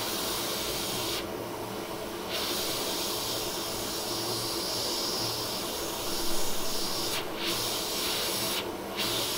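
Hot air rework station blowing, heard as a steady hiss of air used to heat and lift a small coil off an iPhone logic board. The hiss cuts out about a second in, comes back, dips briefly near seven seconds and cuts out again just before nine seconds, with a faint steady hum underneath.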